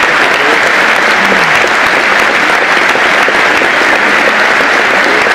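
A large audience applauding steadily at the end of a performance, a dense, even clapping.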